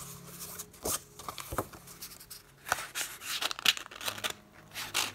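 Paper cards and journal pages rustling and scraping as they are handled and turned: an irregular string of short, crisp rustles.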